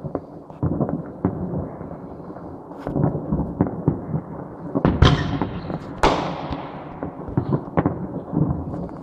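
Many fireworks going off, their overlapping bangs blending into a continuous rumble. Two louder bursts come about five and six seconds in, the second trailing off in a fading hiss.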